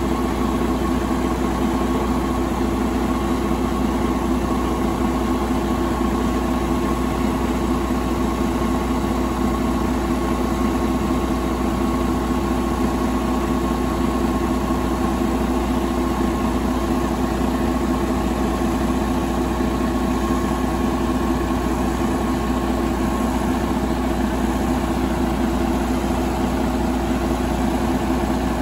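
2012 Detroit Diesel DD15 inline-six diesel engine idling steadily, heard close up in the open engine bay.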